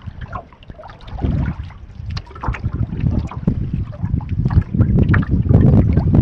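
Wind buffeting the microphone over small waves lapping and splashing against a canoe's hull, growing louder toward the end.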